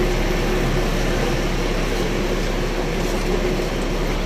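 A large coach idling with its air-conditioning running: a steady, even hum with one constant mid-pitched tone.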